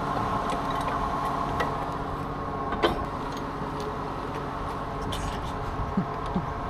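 Vehicle engine running steadily with a steady whine above it, and one sharp click about three seconds in.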